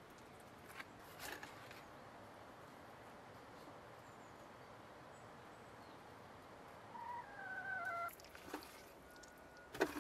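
Quiet room with light clicks and knocks of hands handling raw fish on a wooden board, the sharpest knock near the end. About seven seconds in, a bird calls once, falling in pitch over about a second.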